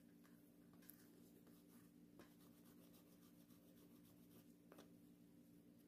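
Near silence: a low steady hum under faint, scattered light rubs and ticks as a leather card holder and a wooden edge burnisher are handled.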